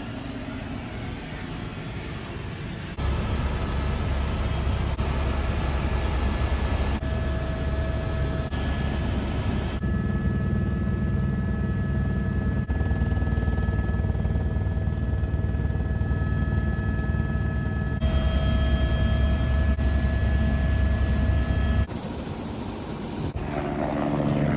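Helicopter cabin noise: the rotor's fast steady beat under a constant turbine whine, cut together from several clips so the level jumps abruptly a few times.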